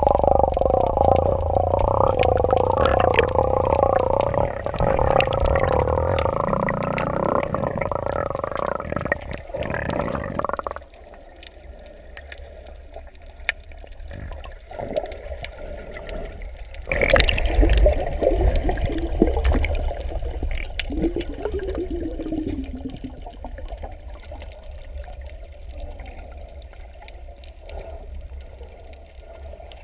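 Muffled underwater sound from a camera held below the surface while snorkelling: water rushing and bubbling around the microphone. It is loud for the first ten seconds or so, drops off suddenly, then rises in another loud rush about seventeen seconds in before settling to a quieter underwater wash.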